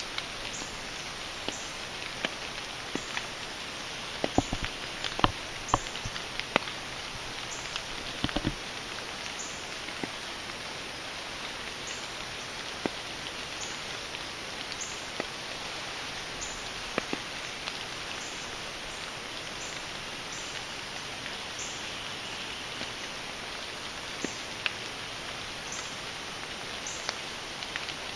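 Rain falling steadily on wet woodland, with scattered sharp drip ticks close by, a handful of louder ones about four to nine seconds in.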